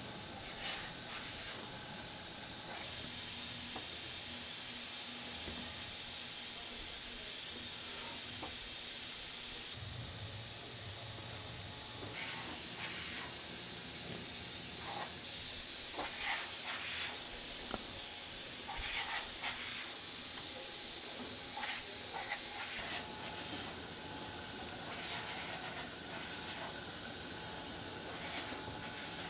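Pottery workshop ambience: a steady high hiss that jumps up and down in level a few times, with faint light clicks and knocks of clay pots being handled on the workbench.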